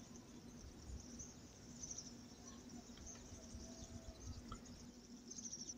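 Faint outdoor ambience of high-pitched wildlife chirping, over a low steady hum.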